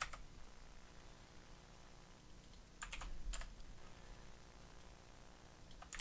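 Computer keyboard keys tapped faintly: one keystroke at the start, a short run of keystrokes about three seconds in, and another just before the end.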